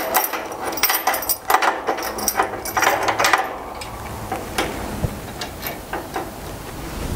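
Steel lifting chains rattling and clinking as they are hooked onto a compressor for an engine-hoist lift. The clinking is busiest over the first three seconds or so, then thins to a few lighter rattles.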